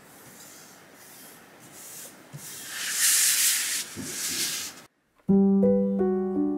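Rustling and scraping of a sheet on a plastic cutting mat being handled and slid over a wooden table, loudest in the middle. It cuts off just before five seconds in, and gentle piano music starts.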